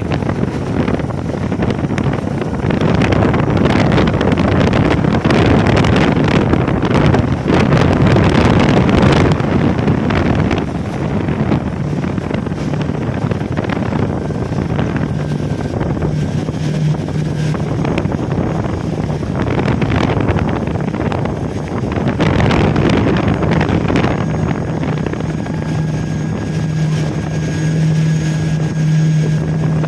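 Motorboat engine running steadily under way, a low drone with wind buffeting the microphone and water rushing past.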